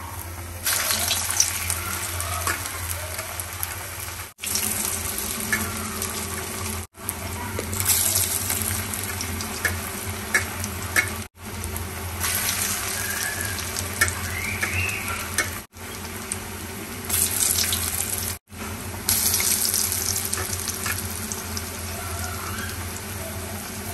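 Bottle-gourd pakoras in gram-flour batter deep-frying in hot oil in a kadhai: a steady hissing sizzle that swells louder several times. It breaks off for an instant at a few points.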